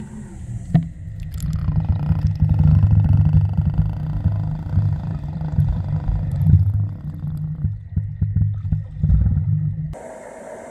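Underwater sound heard through a submerged camera: a loud, muffled low rumble of moving water around a swimmer. It begins with a sharp knock about a second in and cuts off near the end.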